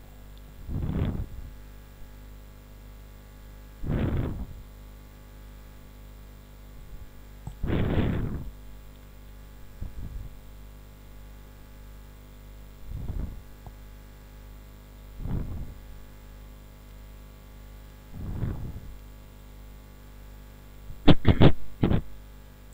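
Steady electrical mains hum on the recording line, with a soft rush of noise every few seconds and a quick cluster of sharp knocks near the end.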